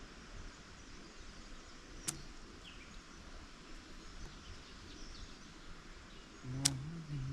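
Quiet outdoor background with two sharp clicks, one about two seconds in and one near the end, followed by a person's voice starting just before the end. No chainsaw is running.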